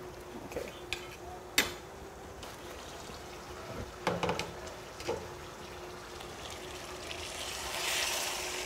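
A metal spoon clinking a few times against a stainless steel cooking pot, then a watery hiss that swells near the end.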